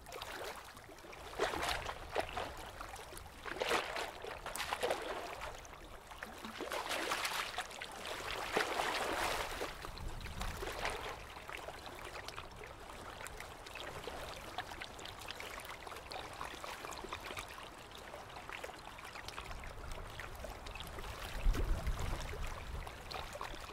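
Water splashing and running: several louder splashes in the first ten seconds, then a steadier flowing-water sound, with a low thump near the end.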